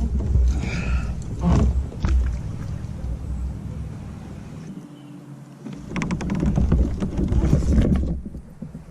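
Wind buffeting the microphone in gusts as a deep rumble, easing off about halfway through and then returning, with scattered light knocks.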